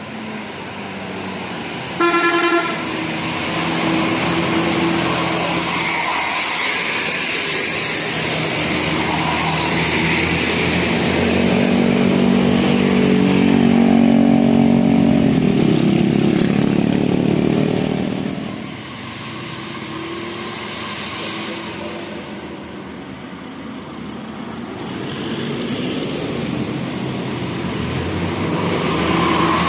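Road traffic passing close by: a single short horn blast about two seconds in, then a large vehicle's engine and tyres swell up, loudest around the middle, and ease off before more traffic builds again near the end.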